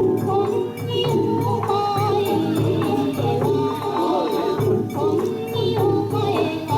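Bon odori dance music: a melody over steady, regular percussion.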